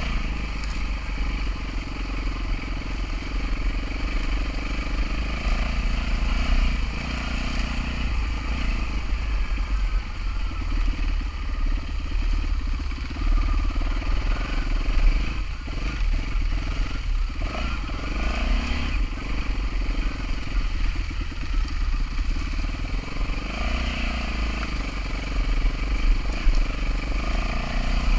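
Yamaha WR-F four-stroke single-cylinder enduro motorcycle running under way on the trail, its engine note rising and falling with the throttle, heard close up from the bike.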